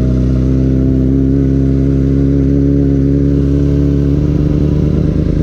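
Yamaha R6 sport bike's inline-four engine running under steady throttle while riding, its note climbing gently in the second half as the bike speeds up.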